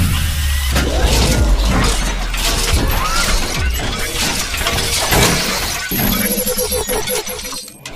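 Sound effects of an animated logo intro: a dense run of glass-shattering and crackling strokes over music and a deep low rumble that fades after about six seconds.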